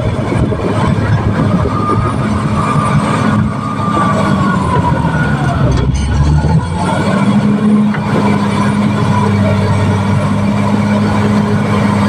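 Caterpillar D6R XL bulldozer's diesel engine running hard as it works. The engine note sags for a couple of seconds midway, then picks back up.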